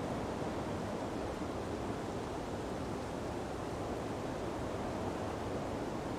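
Sea breeze blowing through palm trees over ocean surf, a steady even rush with no separate wave crashes or gusts standing out.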